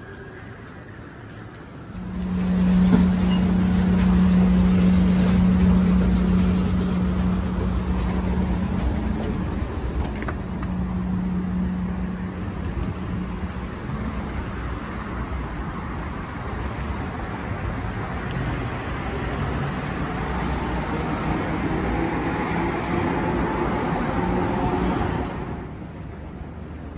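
A loud, steady motor or vehicle running with a low hum, starting abruptly about two seconds in and cutting off suddenly shortly before the end.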